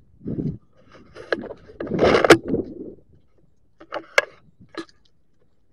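Handling noise from a body-worn camera as it shifts and tips downward: a dull thud, a loud rustling scrape about two seconds in, then a few sharp clicks.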